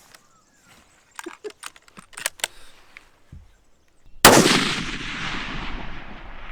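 A single .223 rifle shot about four seconds in, its report trailing off slowly in a long echo. A few faint clicks come before it.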